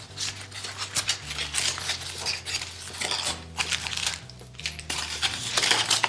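Small cardboard box being unpacked by hand: rustling and scraping of the cardboard, with small hard parts clicking and clinking as they are taken out and set on the tabletop.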